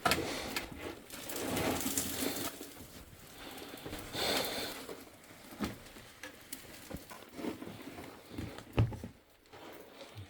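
Irregular scuffing and rustling of a person moving about on rock and ladder, with scattered small knocks and a sharper knock near the end.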